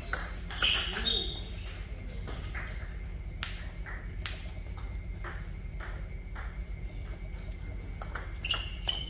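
Table tennis balls clicking: bounces on the table and hits off paddles, a string of sharp, irregular clicks, quickening into a rally near the end.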